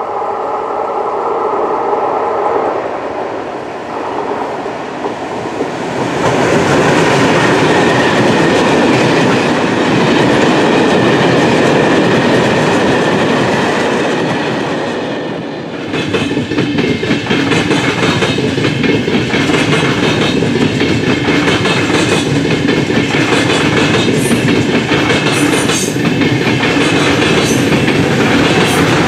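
A freight train of empty stake wagons for timber rolls past with a steady heavy rumble, after a humming tone at first. From about halfway, a VR double-deck passenger train passes, its wheels clacking in a regular rhythm over the rail joints.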